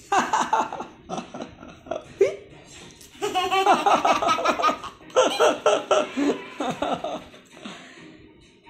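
A toddler laughing in about three long bouts of rapid, pulsing laughs, fading away near the end.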